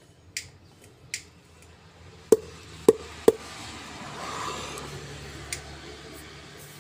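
Metal parts of a Colt Diesel differential knocking together as the cast case half is seated and turned on the ring gear assembly. There are two light taps, then three sharp metallic clinks about half a second apart, each ringing briefly. A soft hiss follows.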